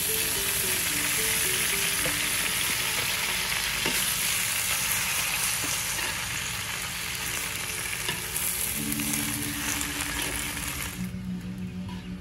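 Pak choi sizzling as it is tipped into a hot wok of fried garlic and chillies and stirred with a metal spatula. The sizzling starts suddenly and cuts off about eleven seconds in, with background music coming in near the end.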